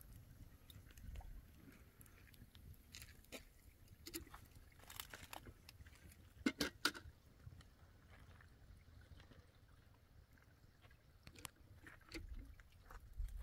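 Quiet outdoor ambience: a low wind rumble on the microphone with scattered light clicks and crunches. The loudest is a quick cluster of clicks about six and a half seconds in.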